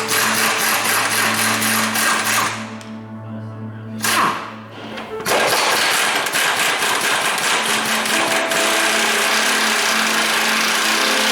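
A hand-held power tool runs in loud bursts with a fast rattle: one long burst, a brief one about four seconds in, then a longer steady run from about five seconds in, over background music.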